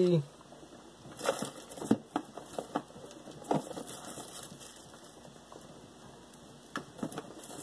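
Rummaging through small parts and plastic packaging on a workbench: scattered rustles and light clicks, the clearest about a second in, near two seconds, midway and near the end.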